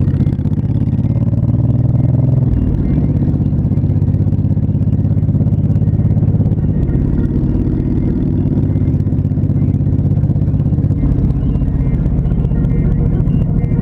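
Honda Shadow Spirit V-twin motorcycle engine running steadily with a low, even exhaust note.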